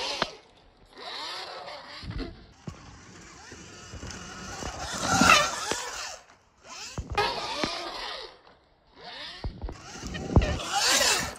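Sur-Ron electric dirt bikes' motors whining in several separate runs, the pitch rising and falling as the throttle is opened and closed, with tyre and wind noise. A few sharp thumps come in between, the loudest burst about halfway through.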